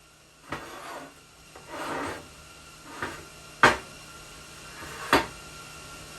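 Workpieces being handled in a workshop: a few scraping rubs, then two sharp knocks about a second and a half apart, over a faint steady hum.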